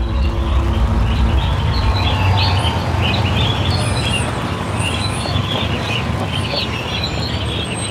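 Birdsong chirping over a low, sustained drone in the dance's soundtrack. The drone thins out about two seconds in and the chirping goes on.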